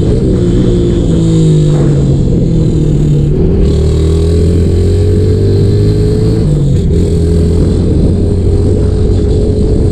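A 150 cc fuel-injected motorcycle being ridden, its de-baffled (gutted) Roncar exhaust loud. The engine note dips in the first couple of seconds, then climbs steadily from about three and a half seconds in and drops back about three seconds later, with wind noise on the microphone.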